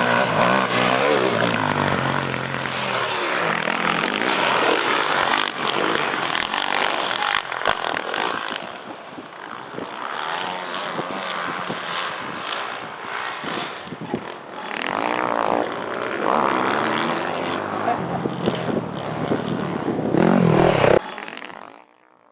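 Motocross dirt bike engine revving up and down as the rider accelerates and backs off, its pitch rising and falling with each throttle change. The sound cuts off suddenly near the end.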